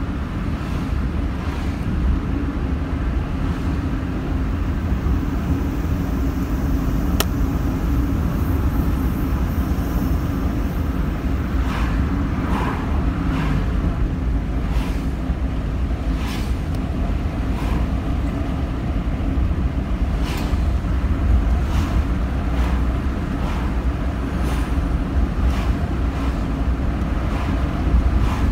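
Steady low rumble of engine and tyre road noise inside a moving car's cabin, with a sharp click about seven seconds in and scattered light ticks later.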